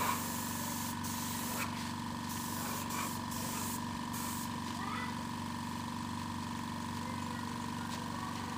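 Air spray gun spraying clear coat onto a mountain-bike frame in several short hissing bursts over the first four or five seconds, over the steady hum of the air compressor feeding it.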